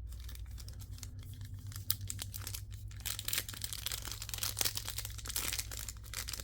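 Plastic foil wrapper of a trading card pack crinkling as it is handled and torn open: a few small rustles and clicks at first, then dense crinkling from about halfway through.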